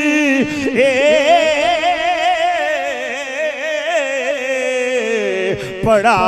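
A man singing Punjabi devotional verse in long, drawn-out melismatic phrases with a strong vibrato, the melody winding up and down through each held note.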